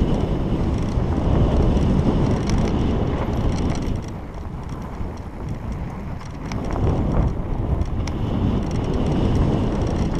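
Mountain bike rolling fast down a dirt trail: heavy wind rush on the microphone over the tyres' rumble, with scattered clicks and rattles from the bike over bumps. It eases off about four seconds in and picks up again a couple of seconds later.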